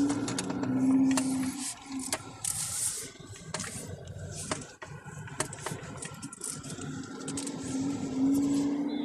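Car being driven slowly, heard from inside the cabin. A steady engine hum is strongest in the first two seconds and again near the end, with scattered light clicks and rattles.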